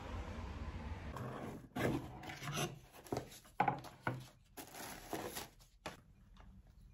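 Wrapping paper rustling and a cardboard shoe box being handled as a pair of shoes is unpacked: a run of uneven rustles and scrapes lasting about four seconds, starting after a low steady rumble and stopping near the end.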